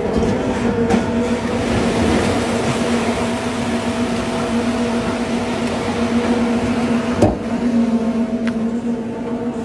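Rotary drilling rig running steadily: a constant engine hum under the noise of the turning drilling bucket churning mud and water in the borehole, with a sharp click about seven seconds in.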